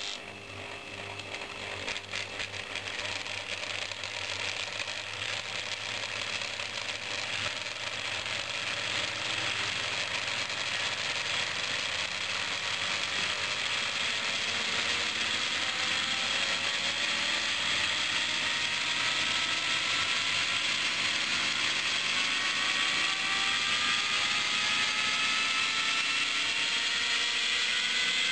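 Homemade belt-driven generator rig spinning up: a rattling mechanical run with a whine that rises slowly in pitch and grows louder as the machine gathers speed and its output comes up.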